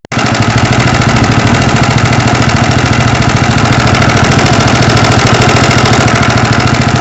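Dafra Horizon 250 motorcycle engine running with a very loud, rapid, even mechanical knocking clatter over the engine note. Two mechanics took this noise for a connecting rod or piston fault; the owner suspected the cam chain tensioner.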